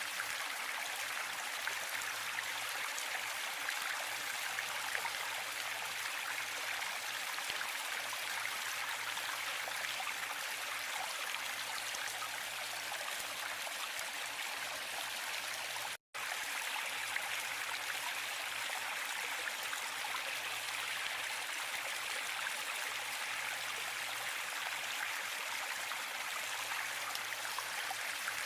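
Waterfall water rushing in a steady, even hiss with little low rumble. It cuts out for an instant about halfway through.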